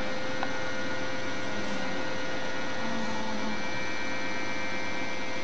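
Steady electrical hum with a hiss, unchanging throughout, with one faint click about half a second in.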